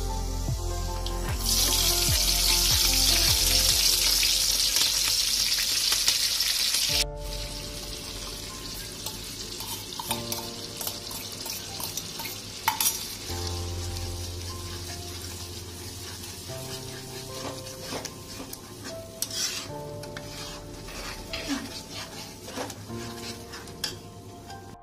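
Food sizzling loudly in hot oil in a kadai for about five seconds, then quieter frying with a spatula stirring and scraping the masala around the pan.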